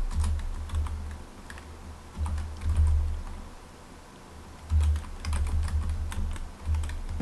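Typing on a computer keyboard: quick runs of keystrokes entering a line of program code, in bursts with a short pause about halfway through.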